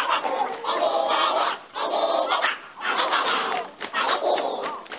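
A crowd of teenage students shouting and cheering together in about four bursts of roughly a second each, with short breaks between them.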